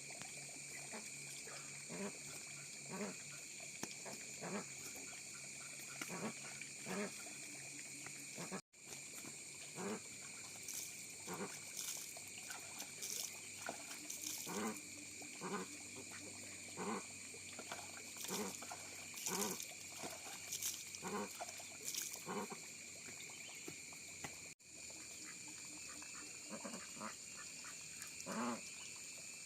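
Ducks quacking in many short, repeated calls, over a steady high-pitched drone, with two brief dropouts where the sound cuts out.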